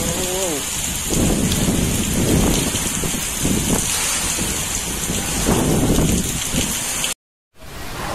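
Typhoon rain pouring steadily onto a flooded street, with strong wind gusts rumbling in deep swells. Near the end the sound cuts off suddenly, and a different sound begins.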